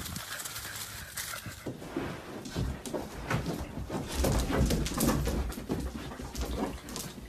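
A pet pig grunting as it noses and shoves its cushion bed across the floor, with rustling and knocking of the bed.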